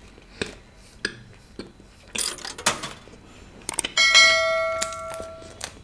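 A bell-chime sound effect rings out about four seconds in, the notification ding of a subscribe-button animation. It is a single bright tone with overtones that fades over about a second and a half. Before it come scattered clicks and smacks of chewing.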